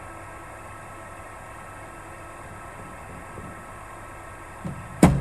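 Cricket bowling machine running with a steady hum of several even tones, then a single sharp knock of a cricket ball near the end.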